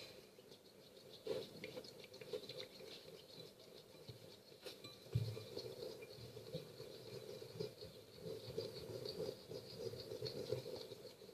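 Faint sticky clicking and squelching of fluffy glue slime being stirred with a stick as the salt makes it come together. A soft knock about five seconds in.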